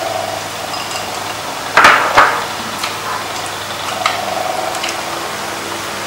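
Chopsticks and spoons clinking and knocking against bowls and a metal pan while people eat, with two sharp knocks close together a little under two seconds in and a few lighter clicks, over a steady low hum.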